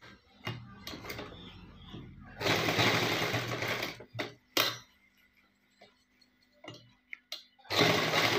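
Roxy sewing machine stitching in short runs: a longer run of about a second and a half a little over two seconds in, two brief runs just after it, and another run near the end, with small clicks between as the fabric is shifted. It is tacking down the folded elastic cuff of a trouser leg.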